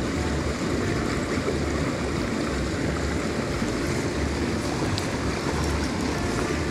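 Small mountain stream running steadily, with irregular low rumbles underneath.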